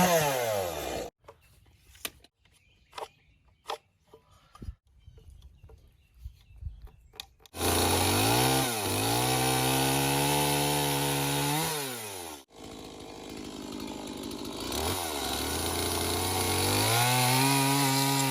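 Chainsaw notching a wooden post. It winds down at the start, falls quiet for a few seconds apart from small knocks, then runs again from about halfway through, its pitch dipping and rising as it cuts. There is a brief break a little later, after which it runs on and speeds up near the end.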